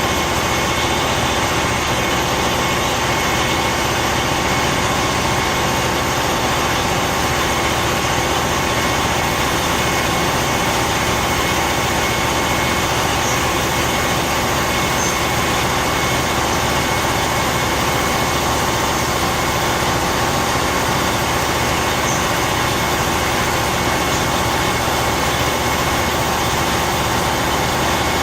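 Diesel engine and generator set of a Bom Sinal light rail vehicle (VLT) running steadily at idle, a constant hum with several steady tones.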